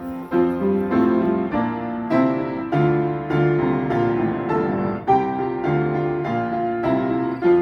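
Background piano music: a steady run of struck notes and chords, about two a second.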